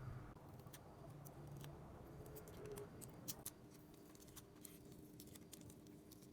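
Faint, scattered small clicks and taps of hand tools on a phone's parts during an iPhone 11 Pro battery replacement.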